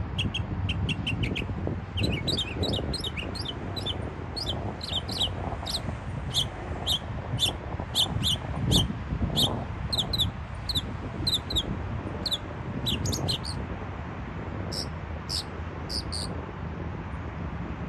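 Northern mockingbird calling, a long run of short, sharp high notes repeated in quick pairs and small groups. The notes pause briefly a little after the middle, then a few louder ones come near the end. A low rumble of background noise runs underneath.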